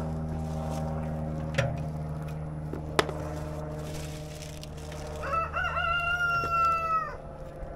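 A rooster crowing once: one long call of about two seconds, starting about five seconds in. Under it runs a steady low hum, and a couple of sharp clicks come earlier.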